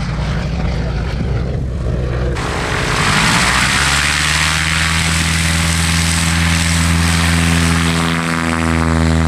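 Piper Super Cub's piston engine and propeller running, loud; the sound changes abruptly about two seconds in, then settles into a steady drone.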